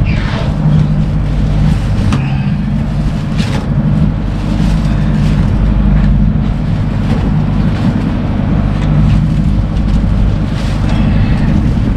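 Ship's engine machinery running with a steady low drone, with a few short knocks and rustles over it.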